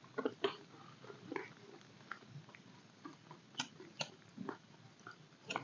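Faint rustling and small clicks of a man rummaging through a bag, then a couple of sharp clicks about three and a half to four seconds in as a cigarette lighter is struck and lights.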